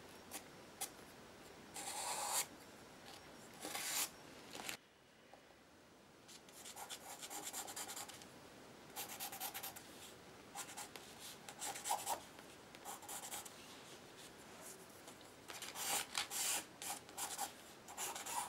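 Soft black charcoal pencil drawing on a painted paper page: short runs of strokes, each lasting a second or so, with pauses between.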